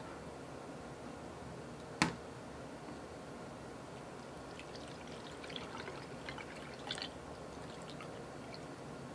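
Watery homemade hand sanitizer poured from a glass beaker through a funnel into a narrow glass cylinder. There is a single sharp click about two seconds in, then faint trickling and dripping for a few seconds.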